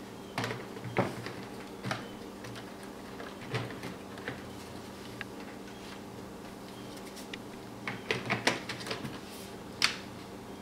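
Scattered sharp plastic clicks and knocks from the HP Envy dv6 laptop's screen assembly being handled, with a quick cluster of clicks about eight seconds in and one louder click near the end, over a steady low hum.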